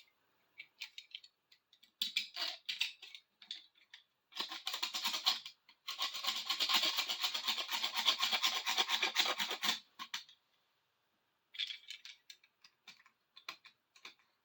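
Dried tape-glue residue being scraped off a bar clamp's handle: quick back-and-forth scraping strokes in bursts, the longest and loudest run lasting from about six to ten seconds in.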